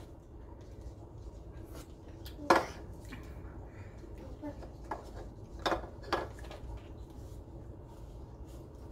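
A few short knocks and clicks of things handled on a table, the loudest about two and a half seconds in and three smaller ones a few seconds later, over a low steady hum.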